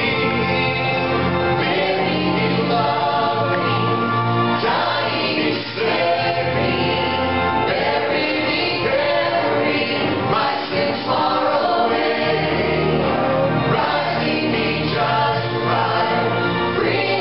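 Church choir singing, many voices together in a continuous sung passage, with steady low held notes underneath.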